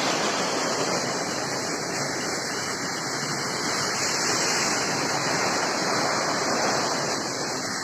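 Floodwater rushing steadily, an even roar of moving water.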